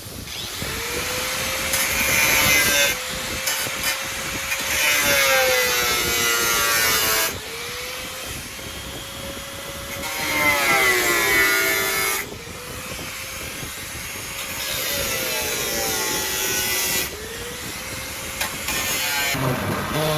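Handheld power tool, a sander or grinder, working a car body panel in repeated passes. Its motor pitch sags each time it is pressed into the work and recovers as it is eased off, with a rasping scrape during each pass.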